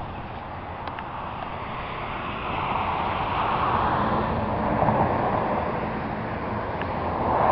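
A rat-rod golf cart's engine idling steadily, with wind gusting on the microphone and getting louder about midway and again near the end.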